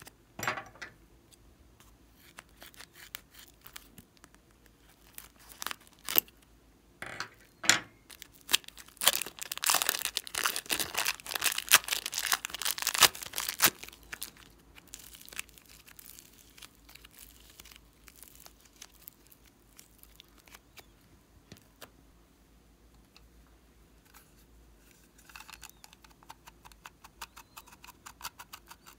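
Thin plastic wrapper crinkling and tearing as soft clay is squeezed out of it, densest in a crackling stretch about nine to fourteen seconds in. Near the end, a run of small quick plastic clicks and rustles as a plastic toy container is opened.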